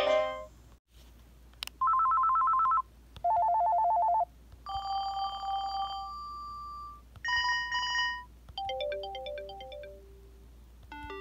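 Panasonic cordless phone handset previewing its ringer tones one after another: after a melody fades out, short electronic ring bursts follow, each with its own pattern. There are two warbling trills, a steady beep, rapid pulsed beeps and a quick run of stepping notes, and a new melody starts near the end.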